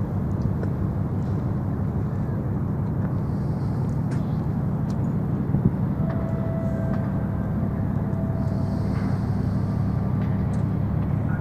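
Steady engine hum and rumble of a moving vehicle, with a faint held whine in the middle.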